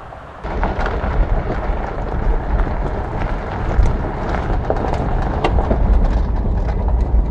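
A truck driving on a gravel road, heard from inside the cab: a low rumble of engine and road with tyres crunching over loose stones and small stones ticking, starting suddenly about half a second in.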